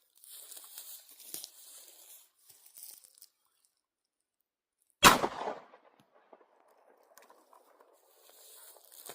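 A single 9mm pistol shot about five seconds in, dying away over about half a second, with faint rustling handling noise before and after it.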